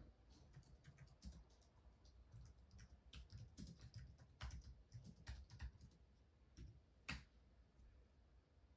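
Faint, irregular clicks and taps of someone typing, with one sharper click about seven seconds in.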